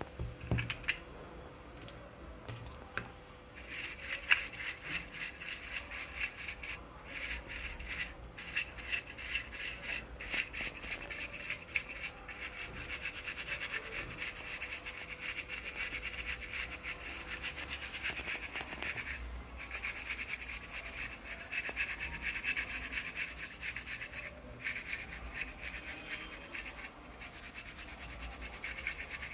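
Fast, continuous scrubbing strokes on the parts of an optical smoke detector being cleaned of dust. The scrubbing starts about three and a half seconds in.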